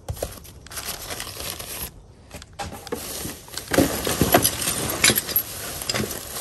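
Plastic trash bag rustling and crinkling as gloved hands rummage through it, with light clicks and knocks of objects being moved around, busiest in the second half.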